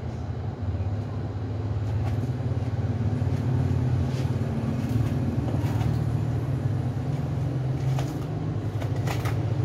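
A steady low motor hum throughout, with a few short scrapes of a spoon scooping soft flesh out of a hard fruit shell.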